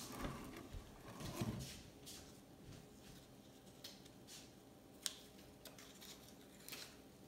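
Faint handling noise of a rubber balloon being stretched. Soft rustling comes in the first couple of seconds, then a few short, sharp ticks.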